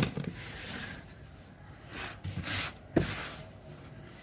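Hand-handled objects being put away: a sharp click at the start, three short rubbing, scraping sounds, and a knock about three seconds in.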